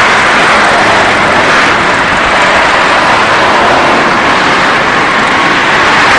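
Steady wind and road noise inside a moving Alfa Romeo 75 1.6, with its carburetted engine running underneath at an even pace.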